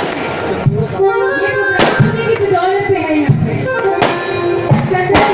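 Aerial fireworks shells bursting overhead with sharp bangs, about one every one to two seconds, four in all. Loud music with a held, reedy melody line plays throughout under them.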